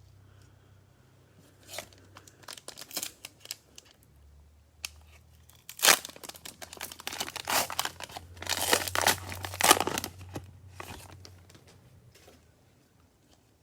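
Cellophane wrapper of a trading-card cello pack being torn open and crinkled: scattered crackles at first, then a dense, loud stretch of crinkling in the middle that dies away near the end.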